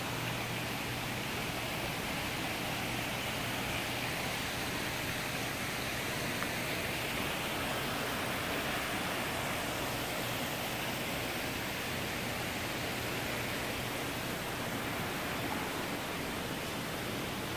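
Steady, even rushing background noise of the glasshouse conservatory with a faint low hum underneath, unchanging throughout.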